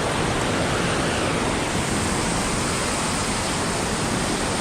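Waterfall pouring: a loud, steady rush of falling water that does not change in level.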